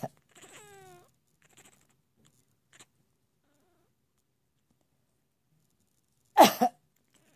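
A cat gives one short meow that falls in pitch about half a second in, right after a cough. About six seconds in, an elderly woman coughs loudly twice in quick succession.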